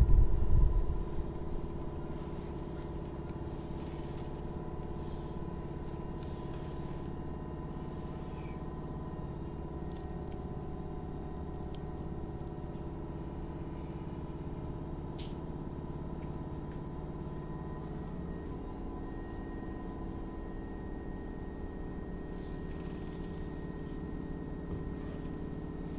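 Inside a Tobu 8000 series resistor-controlled electric train standing still: a steady hum of the car's onboard equipment over a low rumble, with no rise or fall in pitch. A loud low rush of air dies away in the first second or two.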